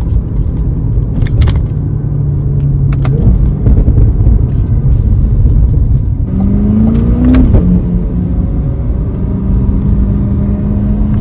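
A C8 Corvette's 6.2-litre LT2 V8 through its stock performance exhaust, heard from inside the cabin. The engine runs steadily in third, jumps briefly about three seconds in as the car drops to second, then climbs in pitch under acceleration around six seconds in and settles. A few sharp exhaust pops crack out at the shifts.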